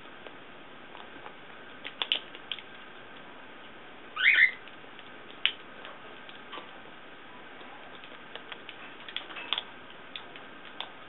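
Blue-and-gold macaw working an almond shell with its beak: scattered small clicks and cracks at irregular intervals, with one short rising squeak about four seconds in.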